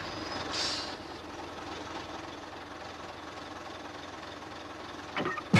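Cartoon sound effect of a convoy of tanker trucks driving by: a steady engine rumble, with a brief high-pitched sound about half a second in and a sudden loud hit at the very end.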